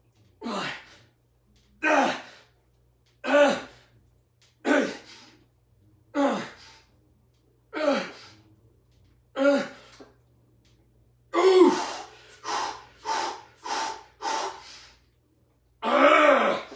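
A man's short, strained vocal sounds, one with each barbell bench press rep, about every one and a half seconds. Later they come faster, and near the end there is a longer, louder strain as the set gets hard.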